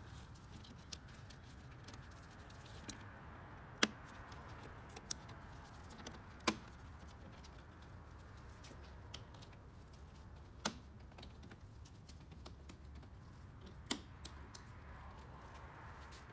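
Plastic push-pin retainer clips along the top of a Toyota Camry front bumper cover being pushed in and pulled out with a flathead screwdriver: scattered small sharp clicks, with four louder ones a few seconds apart. A faint low hum runs underneath.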